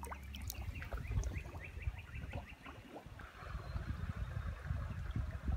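A bird calls in a quick run of short rising chirps, about four a second, for the first three seconds. The creek's running water then comes up as an even hiss. Low rumbling handling and wind noise on the microphone runs underneath.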